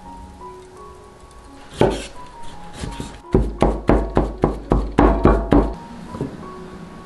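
Cleaver chopping raw pork into mince on a wooden chopping board: one chop about two seconds in, then a quick, even run of about ten chops, roughly four a second, over background music.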